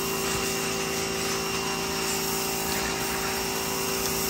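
A small motor running steadily: a constant hum with a fixed whine over a hiss.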